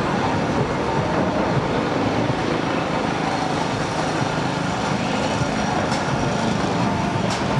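Steady, dense mechanical rumble of fairground rides running as the Turbo Force thrill ride swings its arm around. A couple of brief high-pitched sounds come near the end.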